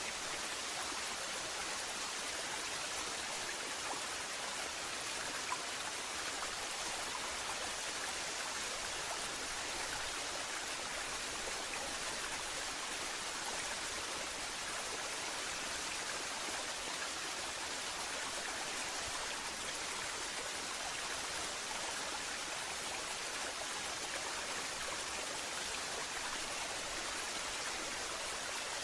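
Waterfall: falling water rushing with a steady, even hiss that does not change.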